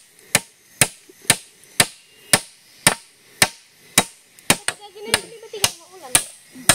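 Claw hammer driving nails into round wooden poles, sharp blows about two a second.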